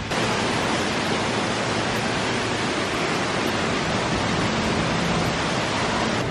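Steady, even rushing of water, cutting in suddenly.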